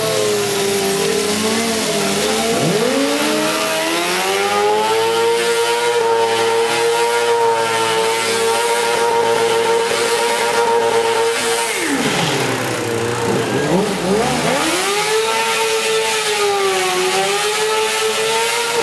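Motorcycle engine held at high revs for long stretches, its pitch steady, then falling away about twelve seconds in and climbing back to a steady high note.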